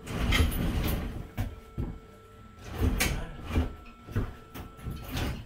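Irregular knocks, clunks and scraping as a heavy stone countertop slab on a steel lift cart is pushed and worked back into place over kitchen cabinets.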